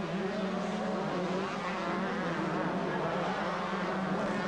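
Several 125cc two-stroke motocross bikes racing, their engines revving and wavering in pitch as the riders work the throttles, overlapping one another without a break.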